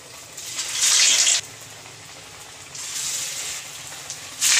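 Hot oil in an aluminium kadai sizzling as stuffed semolina cakes (suji kakara pitha) are lowered in one after another. The sizzle swells three times, about a second in, around three seconds in and again near the end, and settles to a lower hiss between.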